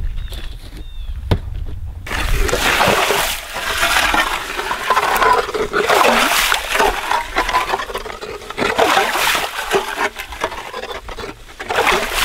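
Hand ice auger being cranked through slushy lake ice: uneven crunching and scraping with slush and water splashing, starting about two seconds in.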